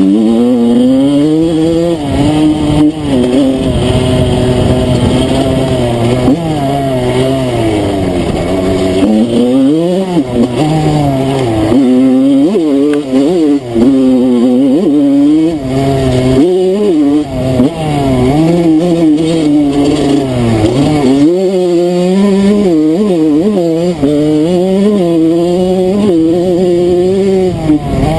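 Enduro dirt bike engine under way off-road, revving up and down over and over as the throttle is opened and closed.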